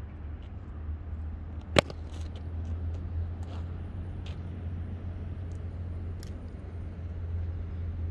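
A cricket bat strikes the ball once, a sharp crack about two seconds in, over a steady low rumble.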